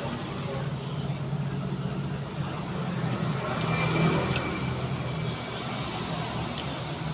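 A motor vehicle engine running steadily at idle, with a louder swell about four seconds in and a sharp click.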